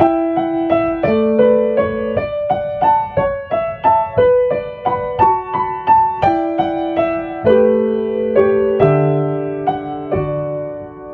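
Solo piano playing a gentle melody over held chords, one note after another; the last chord rings on and dies away near the end.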